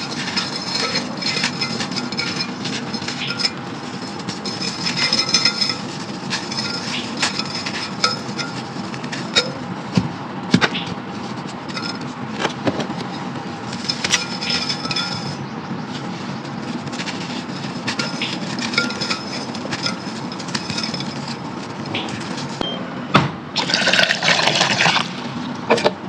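Brown crunchy sand being crumbled in a clay pot: continuous gritty crunching and crackling with small clinks against the pot, and a louder burst of crumbling near the end.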